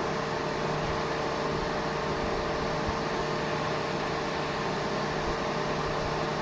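Steady fan-like hum and hiss with a constant low tone, unchanging throughout.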